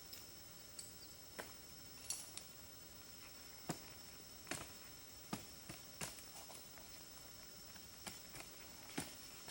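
Faint, sharp clicks or knocks at irregular spacing, about one a second, over a steady high-pitched hum.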